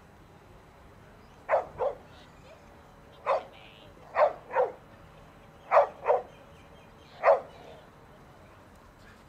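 A dog barking: eight short barks, most of them in quick pairs, about every second and a half.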